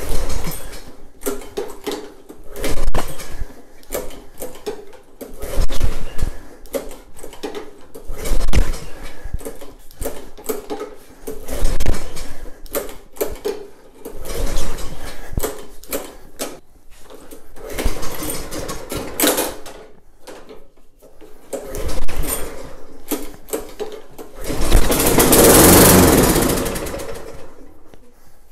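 Tecumseh VLV55 lawn mower engine being pull-started on its recoil starter, about eight pulls roughly every three seconds, each a short burst of the engine turning over, with one longer burst near the end. It does not catch and keep running.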